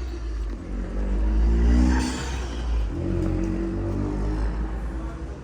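Car engine running under way with a low rumble, its pitch rising and falling as it revs; it is loudest about one and a half to two seconds in.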